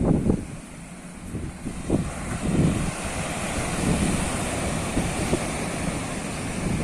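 Wind buffeting the microphone in irregular low gusts over the rushing wash of ocean waves, which grows fuller a few seconds in.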